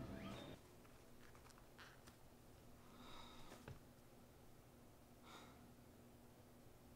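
Near silence: quiet room tone with a few faint breaths through the nose. A louder sound breaks off about half a second in.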